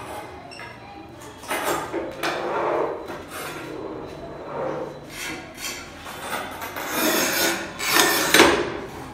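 Rasping scrapes of hand work on ceramic floor tile and cement, in a series of rough strokes with the loudest two near the end.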